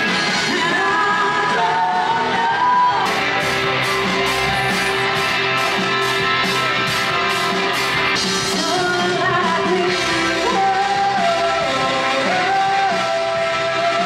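Live rock band performing: sung vocal lines over a drum-kit beat.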